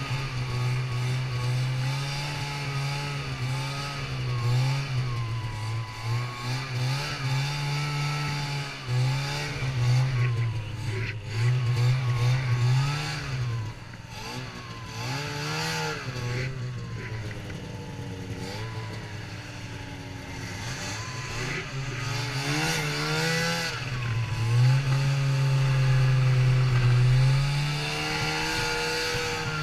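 Snowmobile engine running under way, its pitch rising and falling with the throttle. It eases off around the middle and climbs again in the last few seconds.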